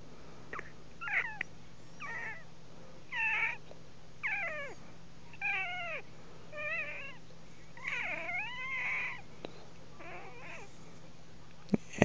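A person squeaking their teeth together to imitate a cat's meows: a series of about nine short, high, gliding squeaks roughly one a second, the longest a little past the middle.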